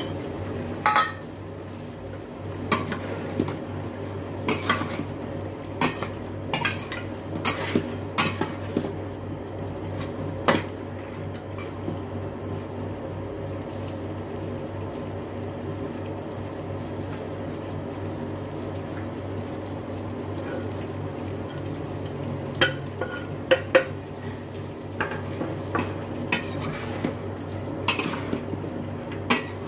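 Clinks, knocks and scrapes of a plate and a cooking utensil against a stainless steel pot as chestnuts are tipped onto the chicken and the pot is stirred. They come in two spells, the first few seconds in and again from about two-thirds of the way through, over a steady low hum.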